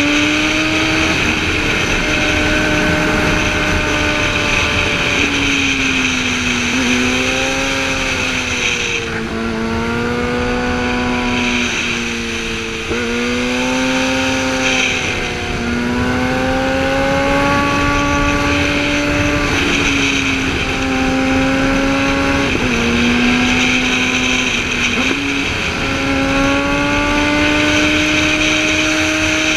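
Sportbike engine heard from the rider's seat, its revs climbing and falling through a run of curves, with sudden drops in pitch at several gear changes. Wind rushes steadily over the onboard camera.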